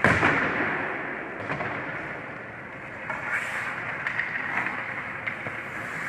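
Ice hockey play in an echoing indoor rink: a sharp crack right at the start that rings out, then skate blades scraping the ice and a couple of lighter stick or puck clacks.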